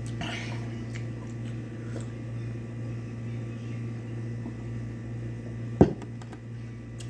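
A steady low hum, with one sharp knock about six seconds in as a glass tumbler is set down on the table after drinking.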